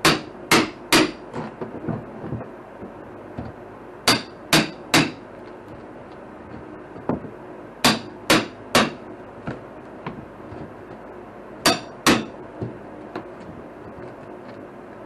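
Hammer striking a flat steel pry bar wedged behind wall paneling: sharp ringing metallic blows in sets of three, about half a second apart, repeated every four seconds or so, the last set only two blows, with lighter knocks in between.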